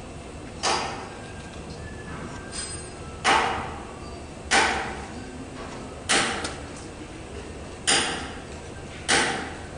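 A series of six sharp knocks, spaced roughly one to two seconds apart, each ringing off briefly, over a steady low hum.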